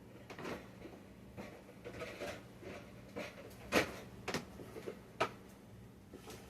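Irregular light knocks and clatters of kitchen items being handled and set down, the two sharpest about four and five seconds in, over a faint steady low hum.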